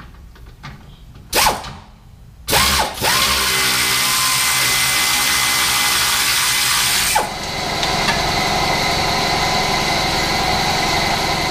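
Pneumatic air ratchet removing the bolt of a stock rear camber arm: a short burst about a second in, then running almost without a break for about nine seconds, dropping a little in level about seven seconds in.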